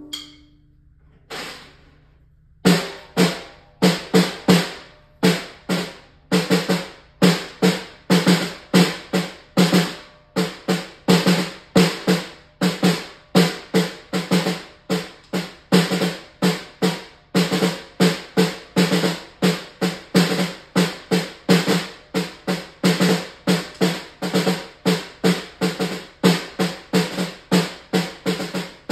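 Snare drum played with wooden drumsticks in a steady pattern of about two strokes a second, some struck in quick pairs. After a short pause with a single hit at the start, the playing resumes a couple of seconds in.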